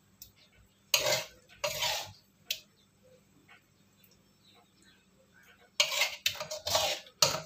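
Spatula scraping and knocking against a wok as cooked rendang is scooped out into a bowl: two short scrapes about a second in, a single click, then a longer run of quick scrapes near the end.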